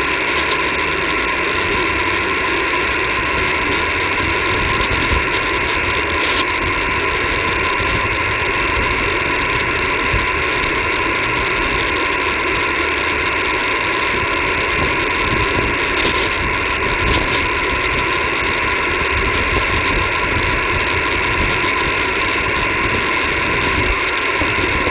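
Steady hiss of static from a shortwave radio receiver tuned to the 20-metre band, with a faint steady tone running through it.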